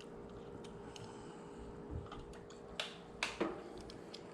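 A few light, sharp metallic clicks and taps, the last three close together near the end: a hex key being handled at a bicycle crank arm's pinch bolts, over a faint steady hum.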